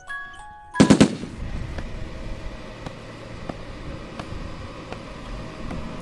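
The last bell-like notes of a jingle, cut off about a second in by a rapid burst of several loud cracks. Then an open-air background follows, with a steady low rumble like a distant truck engine and faint scattered clicks.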